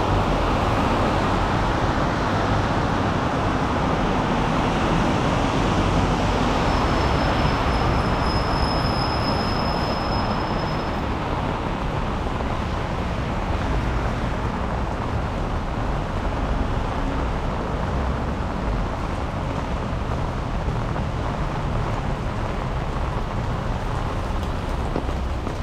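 Steady city street traffic noise, tyres hissing on a wet road in the rain. A thin high whine sounds for a few seconds about a third of the way in.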